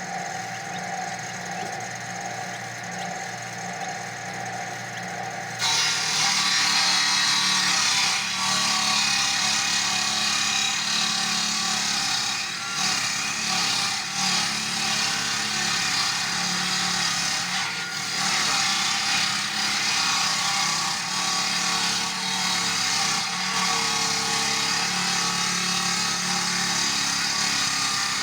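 Two-stroke chainsaw running steadily, then about five seconds in it bites into wood and cuts continuously, the engine staying under load with small dips through the cut.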